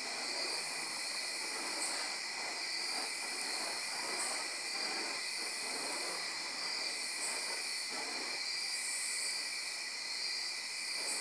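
Steady chorus of night insects with soft pulsing high notes, under the faint, irregular whooshing of burning fire-staff wicks swung through the air.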